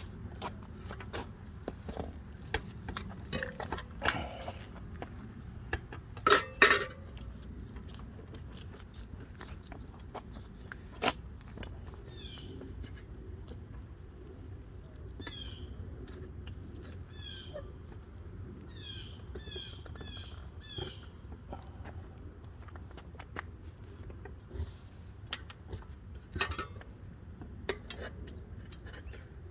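Motorcycle tire being levered onto its rim by hand with metal tire spoons: scattered clicks and knocks of the tools against the wheel, the loudest a quick pair about six seconds in and another near eleven seconds. Under it runs a steady high-pitched drone, with short chirps in the middle.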